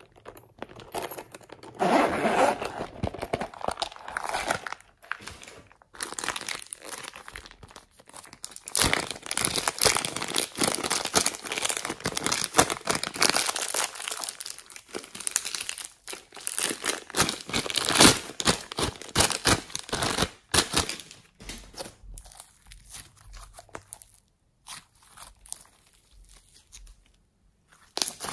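Clear plastic bag crinkling and tearing as it is handled and opened, a dense run of irregular crackles. Near the end, glittery green slime is squeezed between the fingers, giving sparser, quieter sticky clicks and pops.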